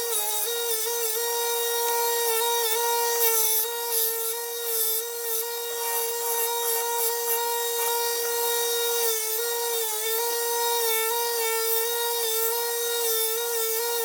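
Belt grinder running with a steady whine while steel knife blades are ground on it. The pitch sags slightly when the blade is pressed to the belt, and there is gritty grinding hiss over the top.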